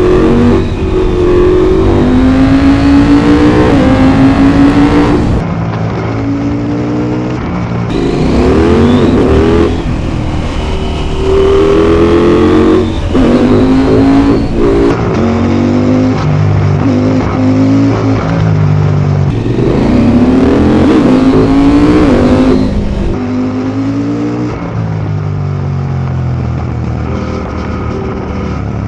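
KTM 890 SMT's parallel-twin engine pulling hard through the gears: the pitch climbs, drops back at each upshift and climbs again. Several such runs alternate with quieter stretches off the throttle.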